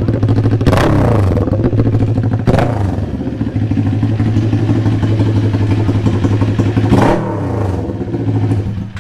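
Kawasaki Ninja 400 RR inline-four sport-bike engine running through an SC-Project aftermarket muffler, idling steadily between sharp throttle blips: one about a second in, another about two and a half seconds in, and a third near seven seconds.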